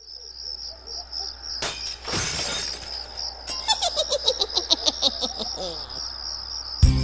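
Crickets chirping steadily in a high pulsing trill. About two seconds in there is a short rush of noise, and in the middle a run of rapid clicks with a falling tone.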